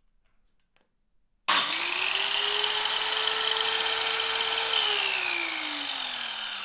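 DWT HKS 15-65 handheld circular saw switched on with no load: about a second and a half in, the motor and blade start suddenly with a quickly rising whine. They run at a steady high pitch for about three seconds, then the trigger is released and the whine falls steadily as the blade spins down.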